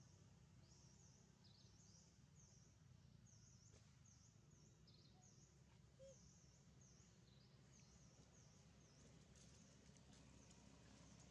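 Near silence: faint outdoor ambience with a soft, high chirp repeating about every half second over a low rumble.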